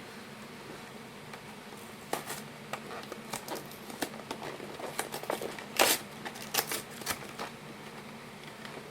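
Plastic food packaging crinkling and crackling as it is pulled and peeled open by hand, in irregular sharp snaps that start about two seconds in, the loudest near the end.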